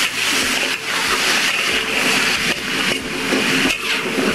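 Diced sweet potato sizzling as it fries in oil in an aluminium wok, a steady hiss that dips briefly about once a second as it is stirred.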